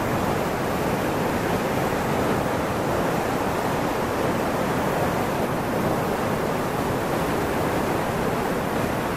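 Steady rushing water noise, an even unbroken hiss that does not change.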